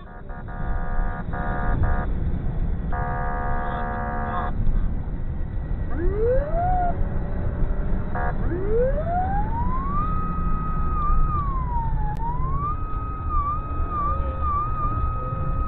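Police car siren winding up in two rising glides, then wailing at a high pitch with quick warbling dips, over the pursuing car's engine and road noise heard from inside the cabin. In the first few seconds, two blasts of a steady horn-like tone sound.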